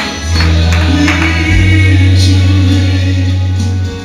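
Slow gospel worship song with a choir singing a long held note over a deep sustained bass note, which drops away just before the end.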